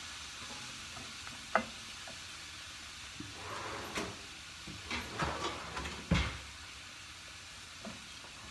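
Vegetables and collard greens steadily sizzling in a non-stick frying pan, steaming in a little added water to soften the greens. A wooden spoon stirs them, knocking against the pan a few times, loudest about six seconds in.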